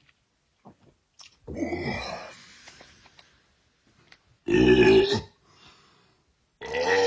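Three long, loud belches, the first about a second and a half in, the second near the middle, the third starting near the end and running on.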